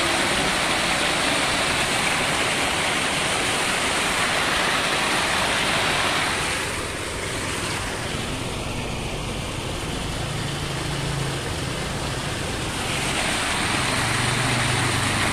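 Water pouring over a small spillway into a shallow stream: a steady rush that grows quieter for several seconds in the middle, then comes back up.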